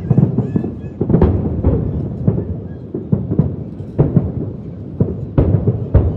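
Aerial firework shells bursting in a rapid run of booms, about two a second, with a low rumble carrying between them.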